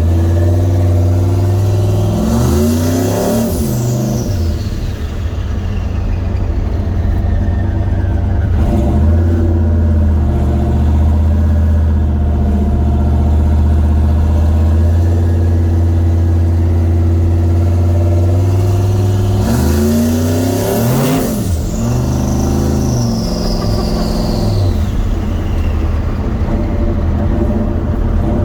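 Turbocharged truck engine with a Garrett G42 turbo running under way, a steady low engine note. Twice, about two seconds in and near twenty seconds in, the engine pitch sweeps up and down and a high whistle falls away.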